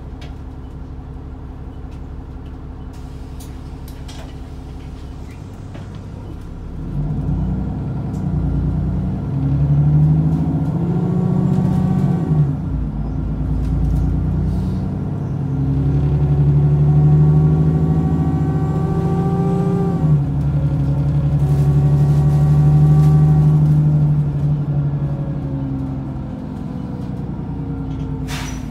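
Alexander Dennis Enviro400 double-decker bus idling, then pulling away and accelerating. Its engine and transmission rise in pitch with a whine, drop back at gear changes about 12 and 20 seconds in, and ease off near the end.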